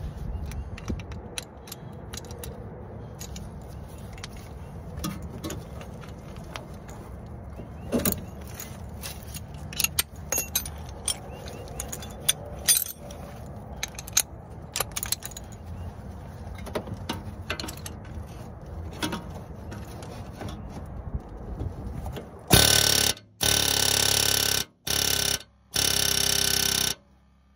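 Scattered metallic clicks and knocks of hand tools working on a car's front wheel hub, over a low rumble. Then, near the end, a pneumatic air hammer on a coiled air hose runs in four loud, harsh bursts, each a second or so long.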